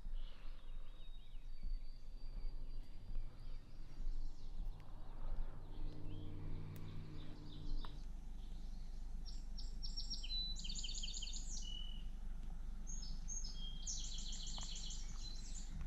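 A songbird singing two short phrases of quick, repeated high notes in the second half, over a steady outdoor background. A brief low hum comes about six seconds in.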